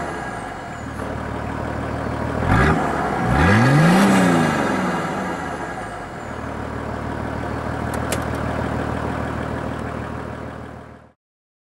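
Nissan Patrol Y60's RD28T 2.8-litre straight-six turbodiesel idling through a 65 mm straight-pipe exhaust with no muffler, blipped once briefly and then revved up and back down about a second later before settling back to idle. A faint click about eight seconds in, and the sound cuts off near the end.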